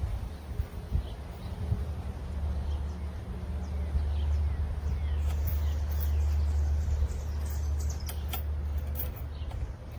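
A low rumble that swells and is loudest in the middle, with small birds chirping in the background and a few sharp clicks near the end.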